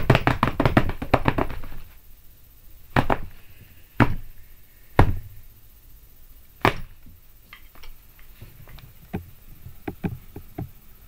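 Drumsticks beating on a bed and pillows used as a makeshift drum kit: a fast flurry of hits that stops about two seconds in, then a few single hard strikes about a second apart, then light scattered taps.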